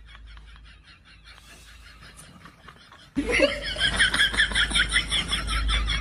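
A person laughing in quick rhythmic bursts, soft at first and then suddenly much louder about three seconds in, over a low rumble of wind on the microphone.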